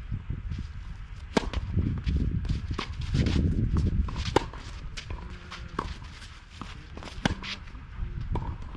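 Tennis rally on a clay court: sharp racket-on-ball hits about every second and a half, with footsteps scuffing on the clay between them.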